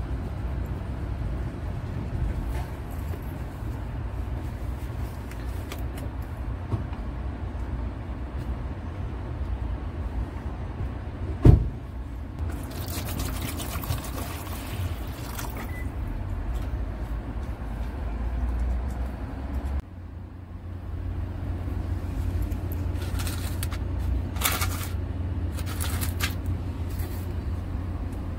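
Water poured from a clear plastic bottle into a plastic tray, splashing for about three seconds in the middle, over a steady low background rumble. A sharp knock just before the pouring is the loudest sound, and a few short hissy sounds follow near the end.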